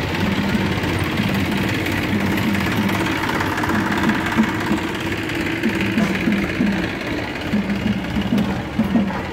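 A vehicle engine running steadily. From about halfway, quick pitched drum beats join it, a few a second.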